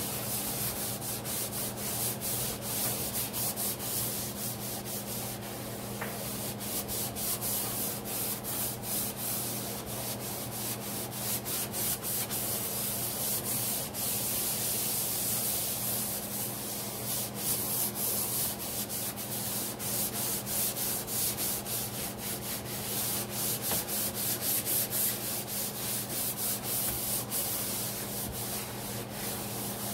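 Sponge scrubbing a stainless steel sink basin coated with Ajax powder cleanser, in quick back-and-forth strokes that keep up throughout.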